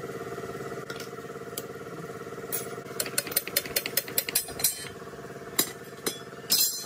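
A motor running steadily, with a quick run of sharp metallic clicks and knocks over it in the second half.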